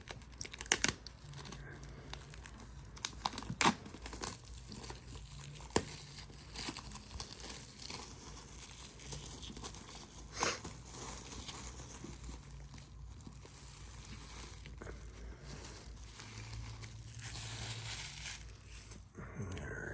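Plastic shrink-wrap being torn and peeled off a cardboard box set: steady crinkling with several sharp crackles as the film rips.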